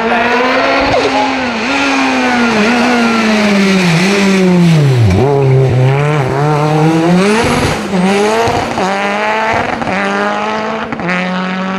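Race car engine at high revs on a hillclimb course. It dips sharply to its lowest note about five seconds in as the car slows for a tight bend, then rises again as the car accelerates away, with brief dips at each gear change.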